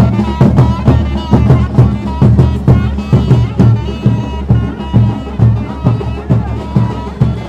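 Traditional music: drums beating a steady, fast rhythm of about two to three strikes a second, with a held melodic tone over them.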